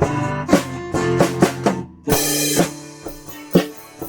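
Live rock band playing an instrumental intro on electric guitar and drum kit. About two seconds in the music breaks off for a moment, then comes back with a cymbal crash and a steady kick-drum beat.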